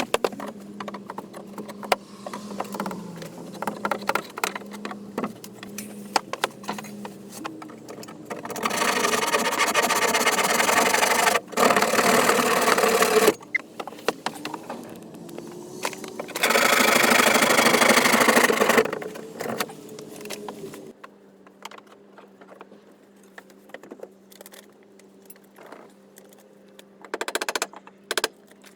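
A handheld power tool runs in three loud bursts of a few seconds each, the last with a slightly falling whine. Scattered knocks and clatter of work on wood come between the bursts.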